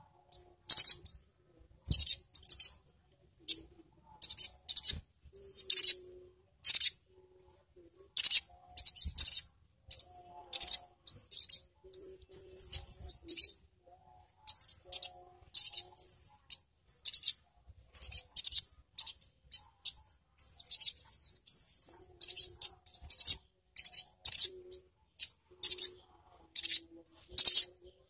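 Caged male sogok ontong (sogon) sunbird calling in its sharp 'ngriwik' style: rapid, very high chirps and short trills in quick bursts, repeated with brief pauses between them.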